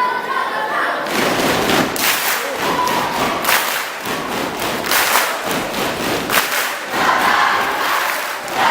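A group of young voices shouts and chants together in a loud crowd, over a run of sharp, heavy thumps.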